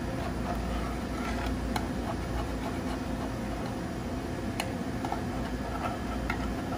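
Scattered light clicks and scrapes of a utensil against a metal muffin tin as a baked egg muffin is pried out of its cup, over a steady low background hum.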